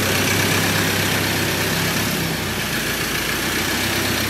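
Ford Ranger 2.2 TDCi four-cylinder diesel engine, freshly reconditioned, running steadily.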